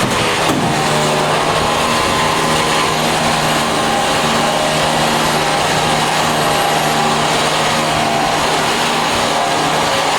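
A car engine running at steady revs under a strong rush of noise, with no revving. It starts and stops abruptly.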